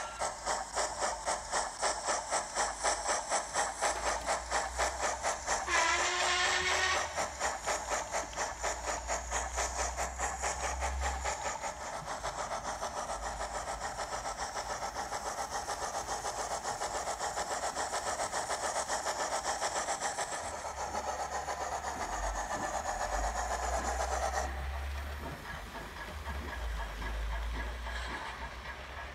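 Digital steam sound from a Hornby Duchess class OO-gauge model locomotive's Zimo MX645R sound decoder, played through its small on-board speaker. It gives fast, rhythmic exhaust chuffs with steam hiss as the locomotive runs. The chuffing eases to a softer, steadier beat from about twelve seconds in and drops quieter after about twenty-four seconds.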